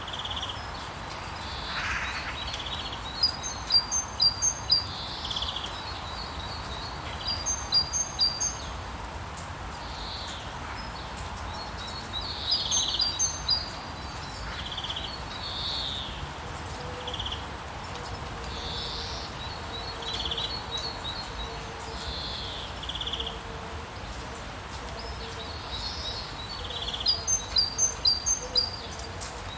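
Steady rainfall with small songbirds singing over it: quick runs of high chirps every few seconds, with single calls in between.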